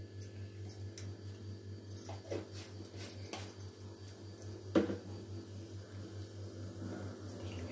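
Cumin seeds sizzling faintly in hot oil in a kadhai, over a steady low hum. A few short sharp sounds cut in, the loudest about five seconds in.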